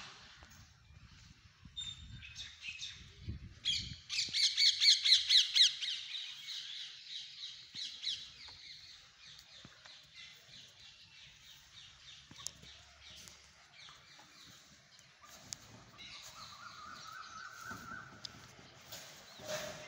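Birds calling: a loud, fast run of high, harsh calls at about five notes a second starts about four seconds in and lasts about four seconds, with fainter scattered calls before and after.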